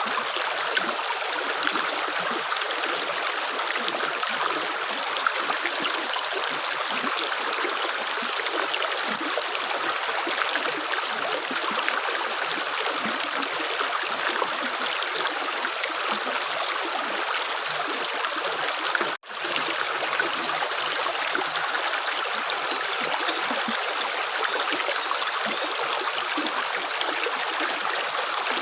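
Continuous running water, like a stream, with an even rushing sound and no separate drips. It cuts out for a split second about two-thirds of the way through.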